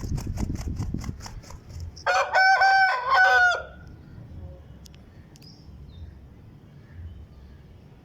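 Aseel rooster crowing once, a loud call of about a second and a half starting about two seconds in, after a run of rapid wing flaps.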